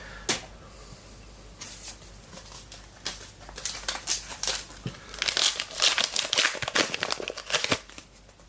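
Crinkling and tearing of a Team Coach trading card pack wrapper being opened by hand: irregular crackles, sparse at first and then busy through the second half.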